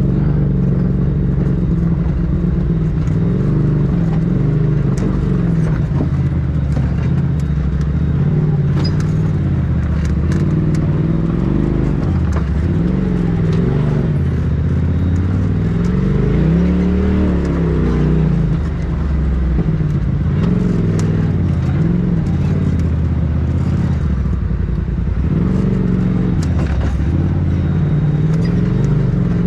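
Polaris RZR Turbo side-by-side's engine running at low speed on a rocky trail, its pitch rising and falling with the throttle, heard from the cab. Scattered clicks and rattles of the machine over rock sit on top.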